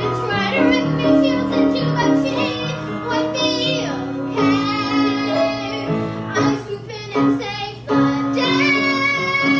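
A song playing: a high, child-like voice sings long held notes over an instrumental accompaniment.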